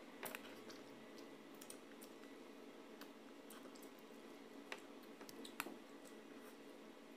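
Faint eating sounds from a person eating mussels and rice by hand: quiet chewing and mouth noises with a few short, sharp clicks, over a low steady hum.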